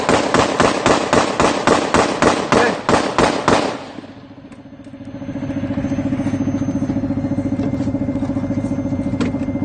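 Sustained rapid gunfire, a steady run of about four to five shots a second, that stops about four seconds in. After a short lull, a vehicle engine runs with a steady drone.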